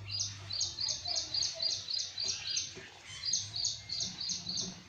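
A bird calling a rapid run of high, repeated notes, about four a second, in two series with a short break a little after the middle.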